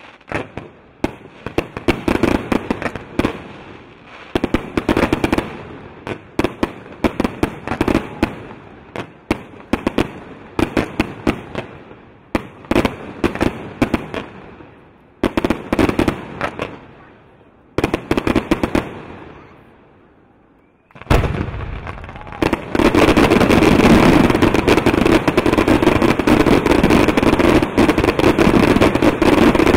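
Fireworks display: volleys of aerial shells bursting with sharp cracks and crackling, coming in clusters every second or two. After a brief lull about twenty seconds in, a dense, continuous barrage of bangs and crackle takes over and is the loudest part.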